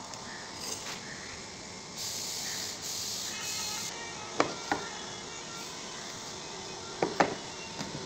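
Small wooden pieces handled on a hard work surface: a hiss of about two seconds, then two pairs of sharp wooden knocks, the louder pair near the end, as the pieces are knocked and set down.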